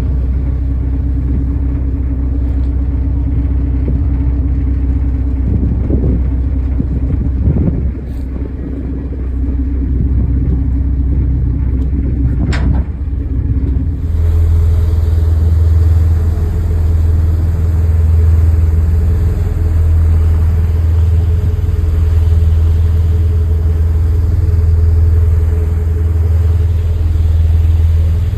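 A boat's engine running with a steady low drone, with low rumble from wind on the microphone. About 14 s in the sound changes abruptly and the drone becomes louder and steadier.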